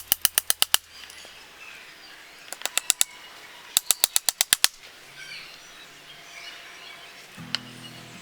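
Quick bursts of sharp strikes from hand-tool work: about seven rapid hits at the start, four more about two and a half seconds in, and eight more around four seconds in. Birds chirp faintly behind, and low steady music tones come in near the end.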